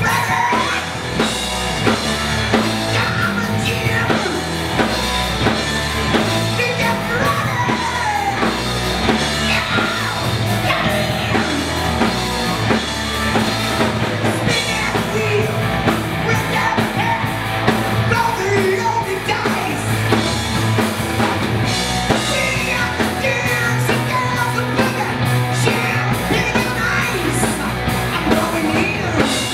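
Live rock band playing hard rock: electric guitars, bass guitar and drum kit, with a man singing.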